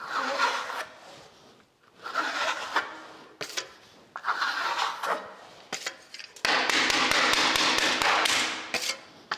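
Steel plastering trowel scraping across fresh decorative plaster on a wall: three short strokes, then a longer, louder stroke about two-thirds of the way in.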